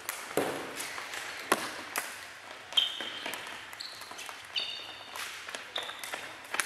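Floorball sticks striking the hollow plastic ball in a sports hall: a string of sharp clacks from shots and passes, echoing off the hall walls, with a few short high squeaks from shoes on the floor about three seconds in and again near the end.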